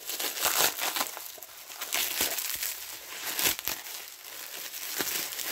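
Bubble wrap and plastic packaging crinkling and crackling as it is pulled open and unwrapped by hand, in a continuous run of sharp crackles.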